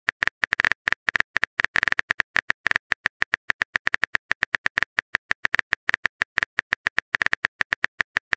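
Keyboard-typing sound effect: rapid, uneven clicking, the sound a texting-story app plays while the next message is being typed.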